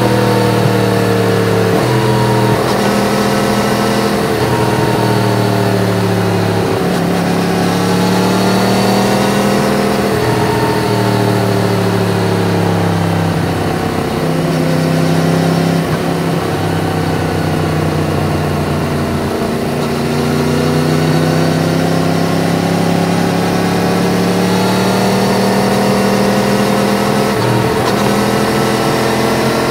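Yamaha MT-10's crossplane inline-four engine, through an Akrapovič exhaust, under way on the road. Its pitch rises and falls with the throttle and steps down and up at several gear changes.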